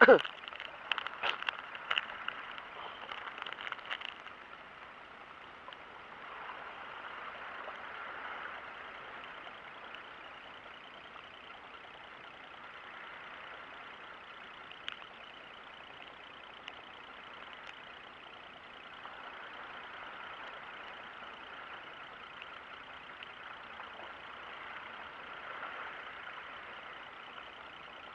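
Plastic soft-lure packet crinkling and clicking in the hands for the first few seconds, then a steady wash of sea water with slow gentle swells.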